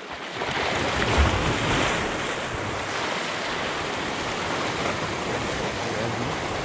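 Small sea waves surging and washing over shoreline rocks close by: a steady rush of surf that swells about half a second in.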